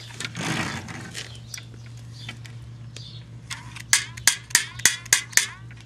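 Fishing tackle being handled: a soft rustle in the first second, then a quick run of about eight sharp clicks lasting about two seconds, over a steady low hum.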